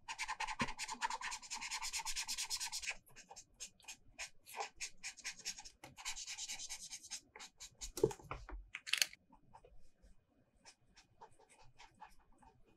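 Felt-tip marker scribbling on paper: fast back-and-forth colouring strokes in two spells, with a single thump about two-thirds of the way in, then lighter, sparser short flicking strokes.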